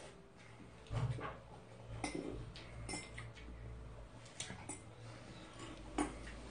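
Chopsticks and spoons clicking against bowls and plates during a meal: a handful of separate sharp clicks about a second apart, over a low steady hum.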